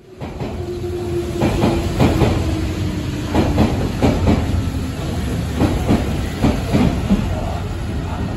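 Hanshin Railway electric commuter train arriving at the platform: a steady rumble of wheels on rail, with paired clacks as each bogie's wheels cross the rail joints. A faint held whine sounds for the first few seconds.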